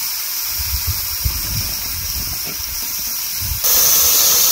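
Steady hissing sizzle from a grill with food cooking on it. It gets louder about three and a half seconds in, with a few low, dull bumps along the way.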